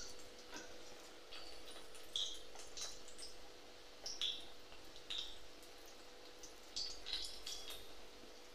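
Small balls of onion pakoda batter dropping one after another into hot oil in a wok, each setting off a short sizzling crackle, about a dozen in all at irregular intervals.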